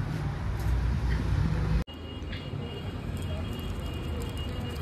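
Steady low rumble of background noise with no clear source. It drops out abruptly for an instant about two seconds in, then resumes with two faint steady high tones above it.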